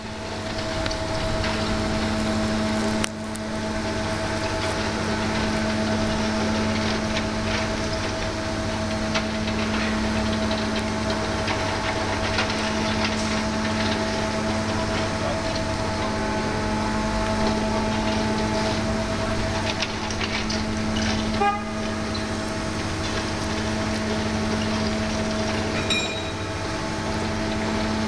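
CAT 301 mini excavator running under load while its hydraulic drum cutter grinds into a concrete wall: a steady engine and hydraulic drone with a constant hum and tone, overlaid by a continuous crackle of the cutter chewing concrete.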